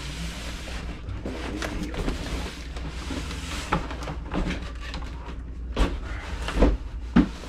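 Cardboard boxes sliding and scraping as an inner carton is pulled up out of its outer shipping box, with a few dull knocks of cardboard in the last two seconds.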